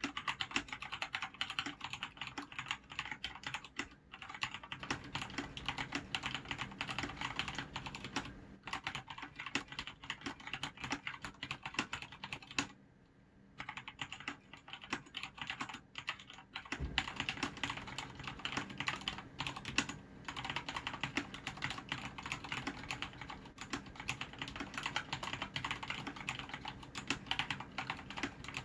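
Continuous fast typing on a Thinkway CROAD C604 mechanical keyboard with Cherry MX Red linear switches and PBT keycaps: a dense run of key clacks. It breaks off in a few short pauses, the longest about a second, around twelve to thirteen seconds in.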